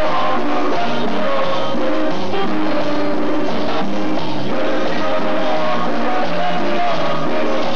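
Recorded music with singing, played loud over a sonido, a mobile DJ sound system.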